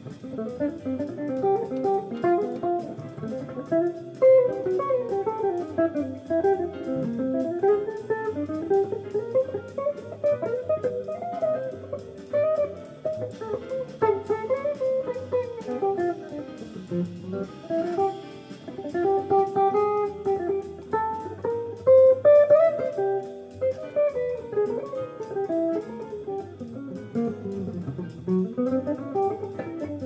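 Hollow-body electric guitar playing jazz: quick single-note lines that keep climbing and falling in pitch without a break.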